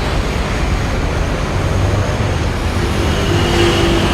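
Gas stove burner roaring steadily under a moka pot as the water heats, with a low rumble; a faint steady hiss or whine rises over it near the end.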